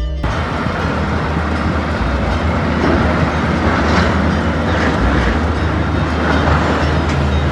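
A heavy truck crossing a bridge: a steady rumble with rattling from the tyres running over the deck, starting abruptly and holding loud throughout.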